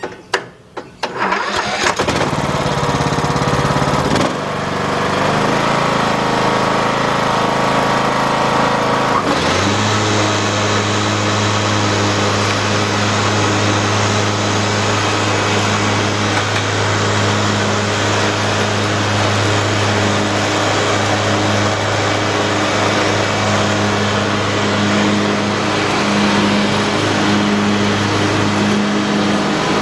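Troy-Bilt Bronco riding lawn tractor's engine starting: a few clicks, then it catches about a second in and runs, its pitch changing near four seconds. From about nine seconds in it runs louder and steady as the tractor mows with the bagger on.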